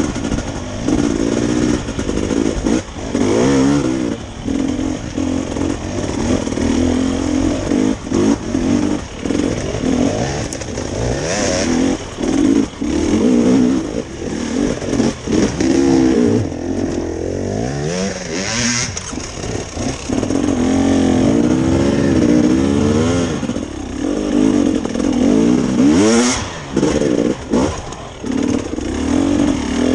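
Enduro dirt bike engine revving up and down while climbing a steep, leaf-covered trail, the pitch rising and falling again and again with short throttle-offs.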